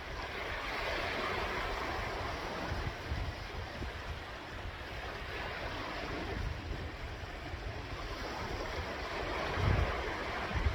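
Sea waves washing ashore in slow, rising and falling swells of surf noise. Wind buffets the microphone in low gusts near the end.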